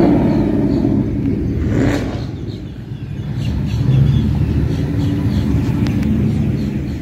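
Ford Mustang V8 engines rumbling as the cars roll slowly through a parking lot, easing off about two and a half seconds in and building again around four seconds.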